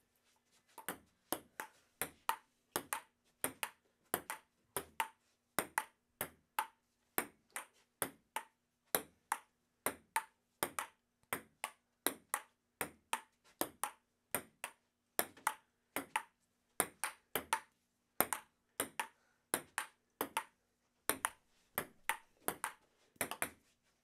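Table tennis ball clicking sharply against paddle and table, a steady run of hits about two a second, starting about a second in.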